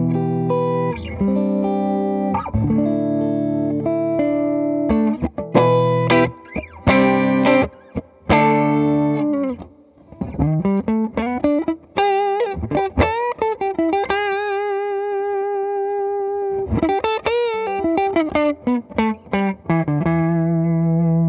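Electric guitar played through an Electra MPC-12 compressor module into an amp, with a slight overdriven edge: repeated chords at first, then single-note lines with string bends and vibrato about halfway through, ending on a held chord.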